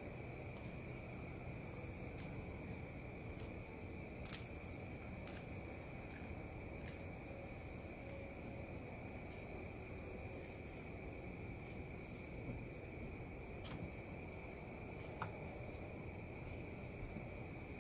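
Steady chorus of crickets trilling, with a few faint clicks and scrapes of a fillet knife working on a plastic cutting board.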